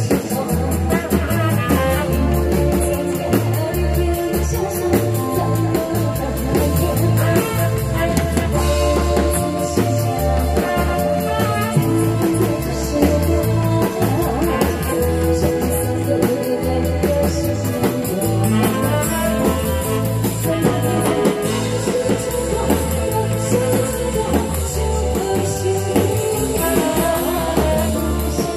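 Live amplified pop music with a steady drum beat: a woman singing into a microphone over band backing through the stage sound system.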